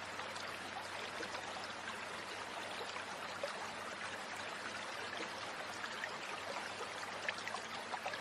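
Steady rushing of a flowing stream, with a few faint small clicks over it.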